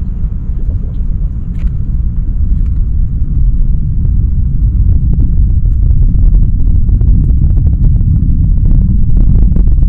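Falcon 9 rocket launch heard from a distance: a deep, continuous low rumble laced with crackling, growing louder over the first several seconds.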